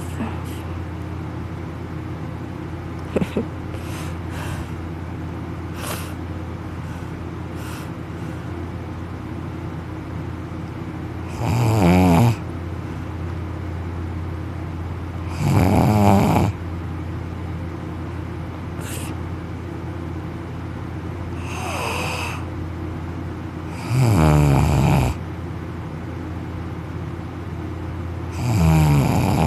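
Man snoring loudly in deep sleep: five long snores, each about a second, roughly every four seconds, the third softer than the rest. A steady low hum runs underneath.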